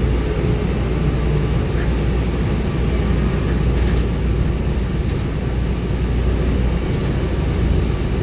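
Shuttle bus on the move, heard from inside: a steady low engine rumble with road and tyre noise.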